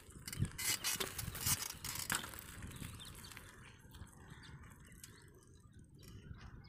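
Mountain bike ridden over dry dirt, rattling and clicking as it gets going, then fading as it moves away.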